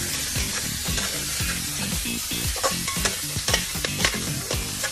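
Food sizzling as it fries in a hot pan, stirred with a utensil that knocks and scrapes irregularly a few times a second over the steady hiss of the oil.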